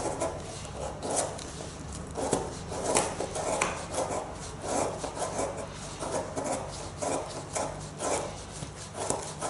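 Chisel-ground Japanese nata hatchet blade shaving curls down a wooden stick to make a feather stick. Repeated short scraping strokes, about one to two a second, some stronger than others.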